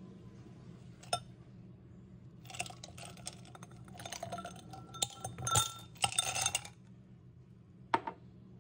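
Ice cubes tipped from a glass container into an empty glass, clinking and rattling against the glass for a few seconds, with one sharp clink near the end.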